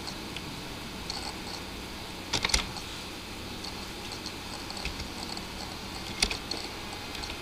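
A few computer keyboard keystrokes over faint steady background noise: a quick cluster about two and a half seconds in and a single sharp keystroke near six seconds.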